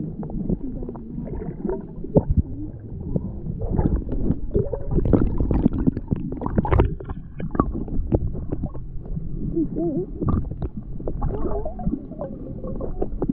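Muffled underwater sound from a camera submerged in shallow sea water: low rumbling and gurgling of moving water, broken by frequent small clicks and knocks.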